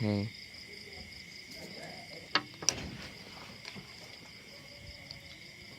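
Steady high-pitched insect trilling in the background, with two sharp clicks close together about two and a half seconds in.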